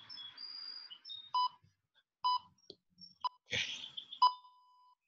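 Interval timer sounding its countdown: four short beeps of the same pitch about a second apart, the last one loudest and held longer, signalling the end of a work interval. Birds chirp in the first second, and a brief noisy rustle comes just before the final beep.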